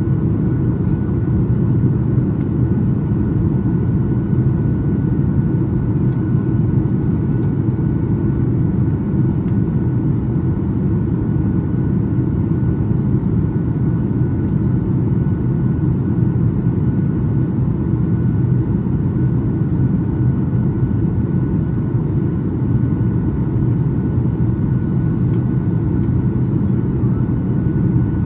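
Steady cabin noise inside a Boeing 737-8 MAX on approach: an even, low rumble of its CFM LEAP-1B engines and the airflow over the fuselage, with a thin steady tone above it.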